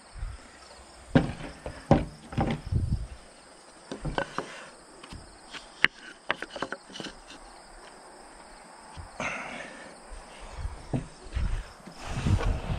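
Irregular wooden knocks and clunks as a wooden shim is worked in under a timber beam and tools are set down on plank staging, with a brief scrape about nine seconds in. Crickets chirp steadily in the background.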